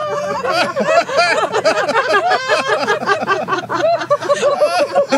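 A group of about six adults laughing together, many voices overlapping continuously: deliberate laughter-yoga laughing, kept going on purpose for as long as they can.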